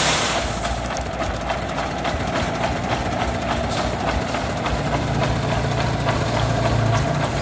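Diesel engines idling with a rapid, even clatter: the single-cylinder engine of a three-wheeled công nông farm truck and a grab crane loading it with crushed stone. There is a brief rush of noise right at the start, and from about five seconds in a deeper engine hum grows louder as the crane works its grab.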